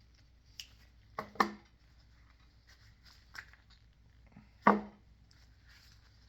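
Sharp metal clicks and knocks, about five in all, as a retaining clip is worked off a mini excavator hydraulic gear pump. The loudest come about a second and a half in and near five seconds, each ringing briefly.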